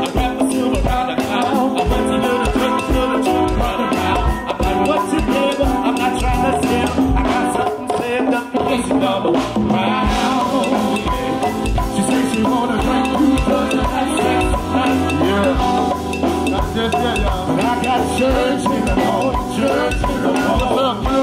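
Live band playing with a drum kit and percussion keeping a steady beat under held melodic parts.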